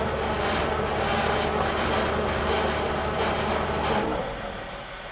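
Chainsaw engine running under load while ripping a jengkol log lengthwise. The engine note drops away about four seconds in.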